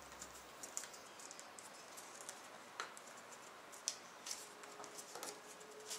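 Faint, scattered crackles and soft ticks of a sheet of white paper being pressed and creased between the fingers while an origami figure is folded.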